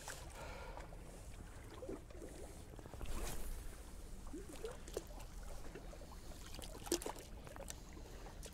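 Faint lapping of calm sea water against shore rocks, with a light breeze.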